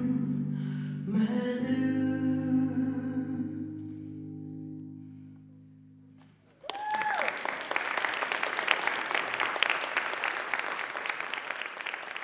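The final held sung note and chord of a recorded song fade out over about six seconds. Then audience applause breaks out suddenly, with a whoop at its start, and keeps going.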